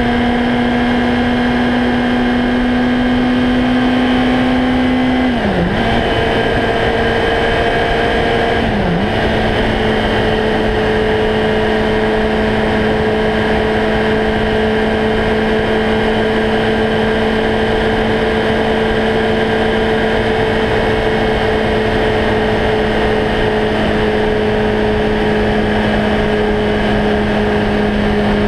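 Yamaha R1's inline-four engine running at a steady cruising speed, with the pitch briefly dipping and recovering twice several seconds apart. Wind rushes over the microphone throughout.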